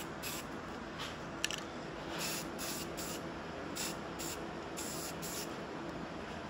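Aerosol spray-paint can hissing in short repeated bursts, about eight in all, as gray paint is sprayed onto hanging metal brackets, with one sharp click about a second and a half in.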